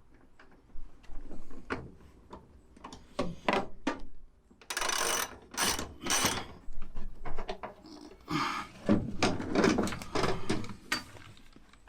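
Socket ratchet clicking and metal seatbelt hardware clinking and rattling in irregular bursts as a seatbelt anchor bolt is worked loose and the belt is handled.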